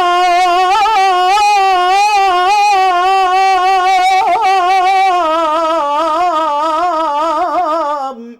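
A man singing a nasheed unaccompanied, drawing out one long vowel with quick ornaments and vibrato. Over the last few seconds the line sinks lower, and it breaks off just before the end.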